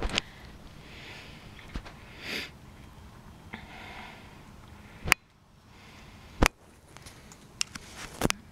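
Short breathy sniffs and about five sharp clicks, spread out, while a feral cat crunches dry kibble on the doormat.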